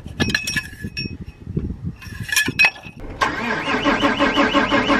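Keys clicking and jingling in a John Deere tractor's ignition, with a few short high beeps. About three seconds in, the diesel engine starts cranking suddenly and loudly, pulsing evenly several times a second.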